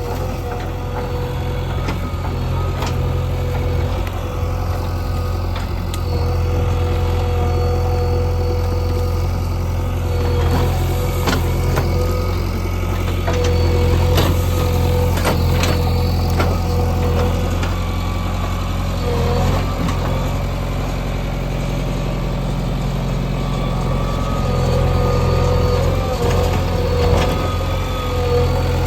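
JCB 3DX backhoe loader's diesel engine running steadily under working load, a low drone that swells and eases, with a whine that comes and goes. A few sharp knocks around the middle.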